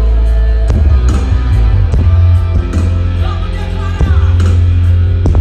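Live gospel concert music from a large stage sound system, with heavy bass and a singer's voice over it.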